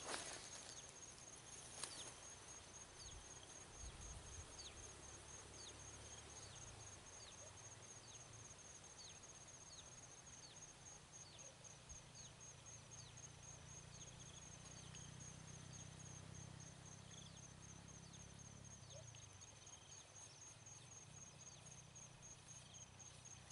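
Faint insect chorus: a steady, high, pulsing trill, with a short falling chirp repeated about once a second and a low hum for a while in the middle.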